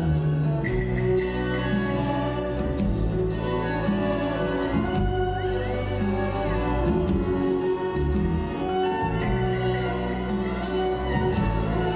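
Reggae band playing live in an acoustic arrangement, with acoustic guitars, hand drums and a singer, recorded on a phone from the audience.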